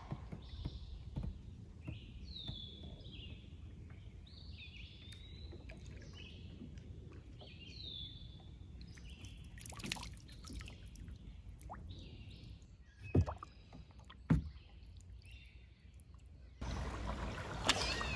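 Songbirds singing in runs of short chirping notes over the low, quiet sound of a kayak drifting on a slow river, with light drips and two knocks a little past the middle. Near the end the sound jumps suddenly to a louder steady rush of water and wind.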